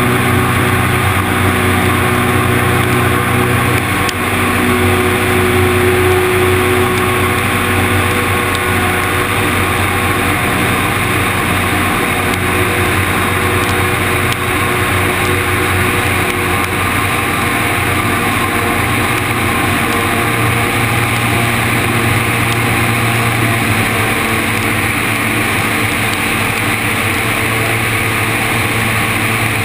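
Zenair CH 701 light aircraft's piston engine and propeller running steadily in flight: a constant drone with an even hiss over it.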